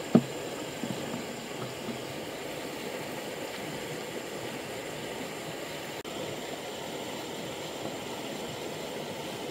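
Steady rushing of a flowing river. A sharp knock comes just after the start, then a few lighter knocks over the next two seconds.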